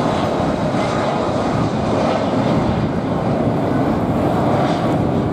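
Airbus A330 airliner's twin jet engines at take-off thrust during the climb-out just after lift-off: a steady, loud rush of engine noise.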